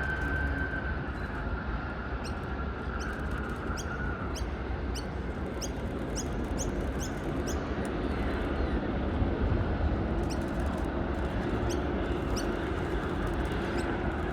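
Steady jet aircraft engine noise, a low rumble with a high whine that fades away over the first few seconds. Through the middle, a run of short high chirps repeats about twice a second.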